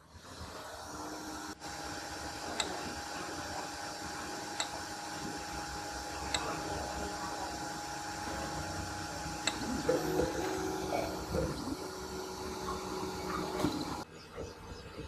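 Geeetech A20M 3D printer running with a steady fan hum and a few light clicks. About ten seconds in, its stepper motors whine at changing pitches for a few seconds as the axes move. The sound drops off sharply near the end.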